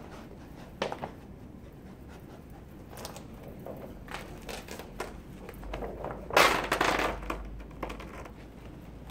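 A short hissing burst of spray from a hand-pump garden sprayer's wand, wetting window film during a wet-method install, about two-thirds of the way through. Before it come light rustling and crinkling of the plastic film and a couple of faint knocks.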